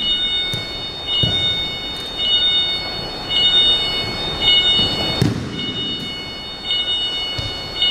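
Aikido partner being thrown and taking breakfalls on a gym mat: several dull thuds of a body landing, the loudest about five seconds in. A steady high-pitched whine runs underneath.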